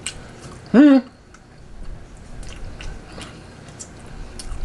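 A man chewing and biting into turkey meat off the bone, with scattered small wet clicks of chewing and a short hummed 'mm' about a second in.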